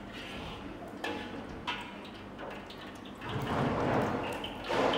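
Lard starting to heat in a wok, crackling and sizzling, with a couple of sharp ladle clicks in the first two seconds; the crackling swells about three seconds in and again near the end.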